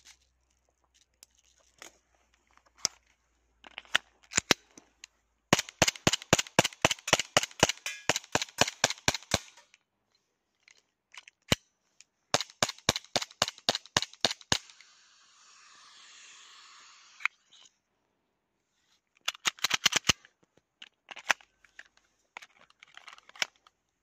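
Umarex Glock 17 gas blowback airsoft pistol firing strings of rapid shots, about four a second, each a sharp crack, with scattered single shots between. Partway through, a steady hiss lasts about three seconds.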